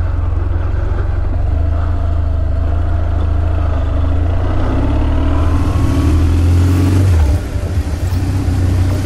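2005 BMW R1200GS's boxer-twin engine pulling away and accelerating, its note climbing through the revs, then dropping sharply about seven seconds in.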